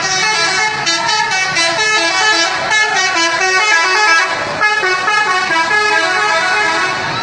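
Telolet horn on a Shantika bus: a multi-tone horn playing a quick tune of short notes that step up and down in pitch, with a brief break about four seconds in.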